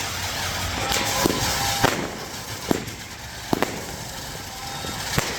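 Fireworks going off: about seven sharp bangs at irregular intervals, some close together, over a steady background hiss.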